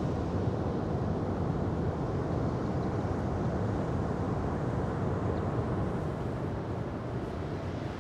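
Ocean surf making a steady low rushing rumble, easing a little near the end.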